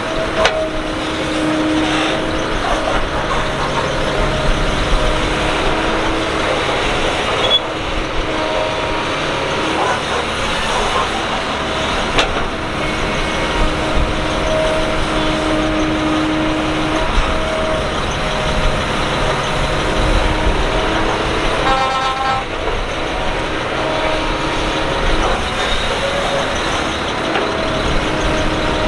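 Kobelco SK200 excavator working: its diesel engine runs steadily under load, with a steady whine that swells and fades every few seconds as the hydraulics work. There are a few sharp knocks and a brief rattle.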